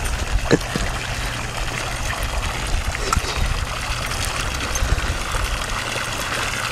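Steady trickling and splashing of pond water.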